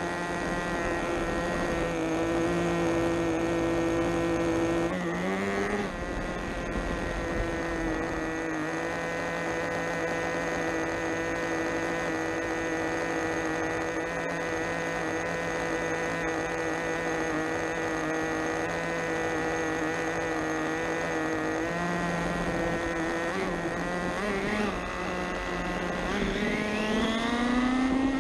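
Radio-controlled monster truck's motor running at a steady pitch while the truck waits, then rising in pitch near the end as the truck speeds off.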